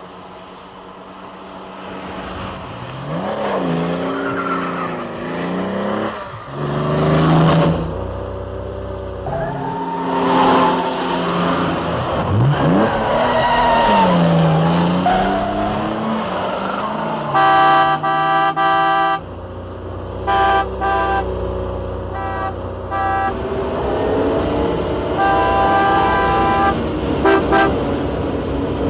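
Sports-car engines, an Aston Martin DB5 among them, revving up and down through mountain bends, with tyre noise. From a little past halfway a car horn sounds one long blast, then a string of short toots.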